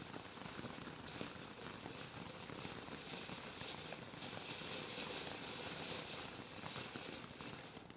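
Low-noise garden firework fountain burning: a steady hissing spray of sparks with faint crackles. It grows a little louder past halfway and begins to die away at the very end.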